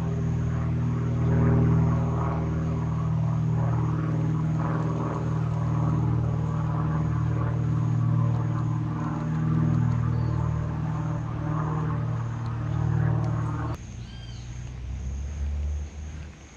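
A small motor running steadily with a low, even hum, cutting off abruptly about fourteen seconds in; after it come a few faint, high chirps.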